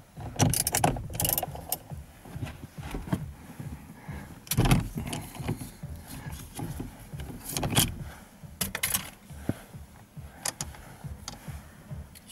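Metal hand tools clinking and clattering in irregular knocks, with louder clanks about half a second in, near five seconds and near eight seconds.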